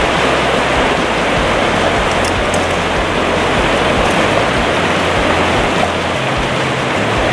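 Rushing stream water pouring over rocks and shallow riffles: a steady, even hiss.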